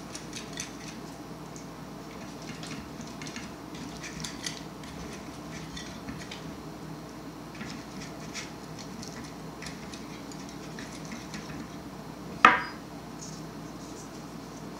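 Silicone pastry brush dabbing melted butter into the cups of a metal muffin tin, with many light clicks and taps. About twelve seconds in comes a single loud clink with a short ring.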